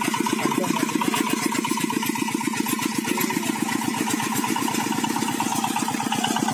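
Zubr walk-behind tractor's single-cylinder diesel engine running steadily with an even, rapid chugging beat.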